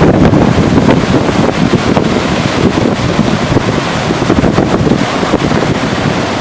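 Strong tropical-storm wind blowing in gusts and buffeting the microphone with a loud, continuous rumble.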